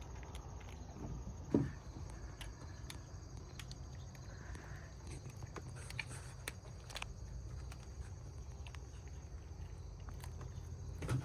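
Steady high insect chirring over a low outdoor rumble, with scattered faint clicks and taps and one louder knock about a second and a half in.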